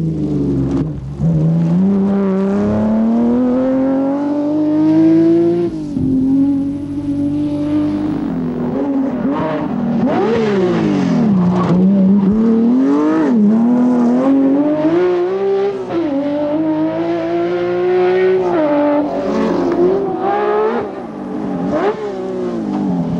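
BMW M1 rally car's straight-six engine howling at high revs, its pitch climbing through each gear and dropping sharply at the shifts, with quick dips and blips as it slows for bends.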